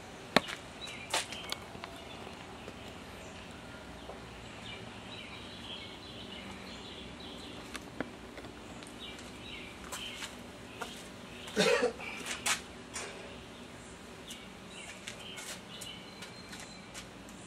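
Quiet outdoor ambience with faint bird chirps, broken by a few sharp clicks and one louder knock or clatter about two-thirds of the way through.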